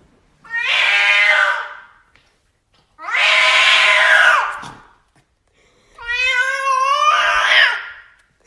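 Domestic cat yowling: three long, hoarse, drawn-out calls, each about two seconds long with short pauses between them.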